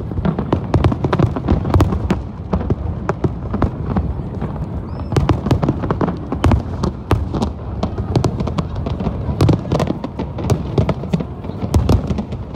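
Aerial fireworks display: a dense, irregular stream of sharp bangs and crackles over a steady low rumble.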